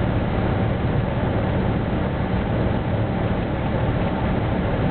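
Cessna 172's piston engine and propeller droning steadily, heard inside the cabin together with the rush of air over the airframe.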